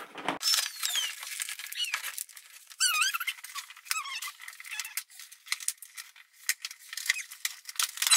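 Rigid clear plastic clamshell packaging being cut and pried open: the plastic crackles and clicks, with repeated high squeaks as it is bent.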